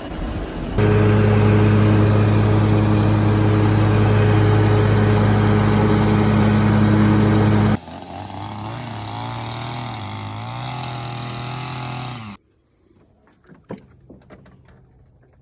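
Mower engine running at a steady speed, loud, with a strong low hum. About eight seconds in it cuts to a quieter engine whose pitch wavers slightly. That sound stops abruptly near the end, leaving a few faint clicks.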